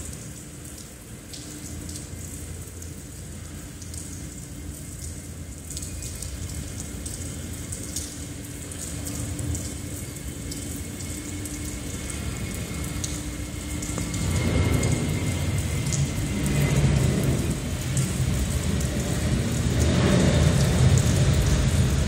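Jet airliner's engines at takeoff thrust, a deep rumble that swells from about two-thirds of the way in and keeps getting louder as the aircraft rolls down the runway and lifts off. It is heard muffled through the terminal's glass, over a low steady hum.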